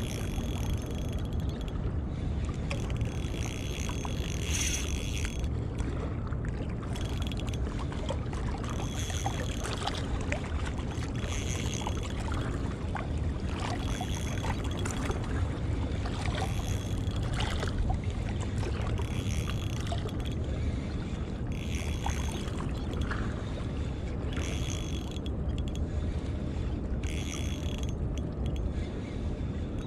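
Shimano Stradic CI4+ 1000 spinning reel whirring in short spells every two seconds or so as a hooked fish is worked in close, over a steady low rumble.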